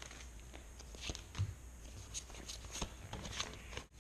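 Pokémon trading cards and booster-pack wrapper being handled: scattered faint clicks and light rustles.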